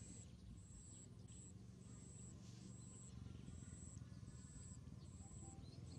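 Faint, even chirping of insects: high-pitched pulses a little over one a second, over a low background hum.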